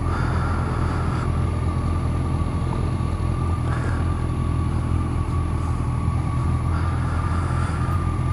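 Honda CBR1100XX Blackbird's inline-four engine running steadily at low speed as the bike rolls slowly, a continuous low rumble with a thin steady whine above it.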